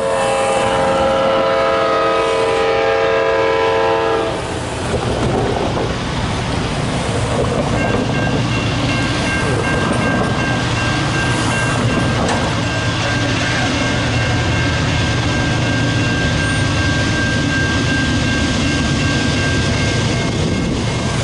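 CSX freight locomotive horn sounding one long multi-note chord for about four seconds, over the low rumble of loaded diesel locomotives working at full power as the train approaches. About eight seconds in, a steady ringing from the grade-crossing warning bell joins it and keeps going as the train draws near.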